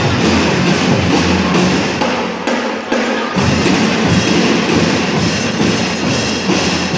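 A school lyre and drum band playing a marching beat, drums driving a steady rhythm. The deep drums drop out for under a second a little under halfway through, then come back in.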